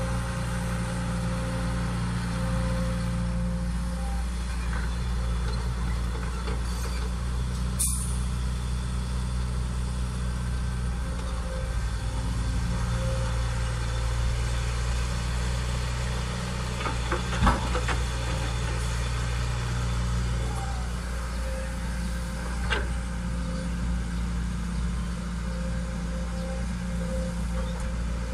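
Caterpillar hydraulic excavator's diesel engine running steadily as it digs soil and loads a dump truck, with a few short knocks from the bucket working, the loudest a little past halfway.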